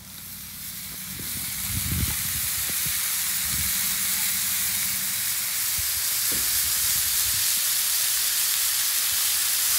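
Raw ground-beef burger patties sizzling on a preheated Camp Chef flat-top griddle as they are laid down one after another. The sizzle swells over the first couple of seconds as more patties go on, then holds steady, with a few low knocks of patties set down on the steel.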